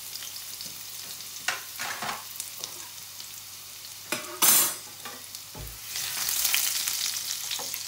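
Chopped garlic sizzling in hot vegetable oil in a stainless-steel pan, with a few light utensil clicks and one short, loud noise about halfway through. From about three-quarters of the way in, a spatula stirs the garlic and the sizzle grows louder.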